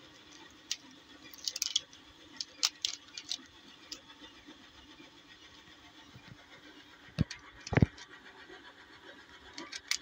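Plastic 3x3 Rubik's cube being turned by hand: scattered light clicks and clatters as its layers are twisted, coming in quick bursts with a pause in the middle. Two duller knocks about three-quarters of the way through, the second the loudest sound.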